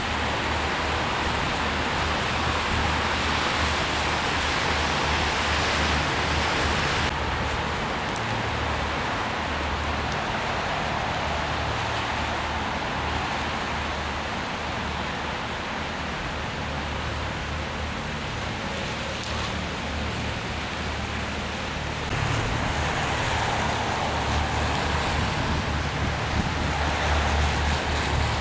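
Wind buffeting the microphone over a steady outdoor rushing noise; the sound changes abruptly about a quarter of the way in and again about three-quarters of the way in.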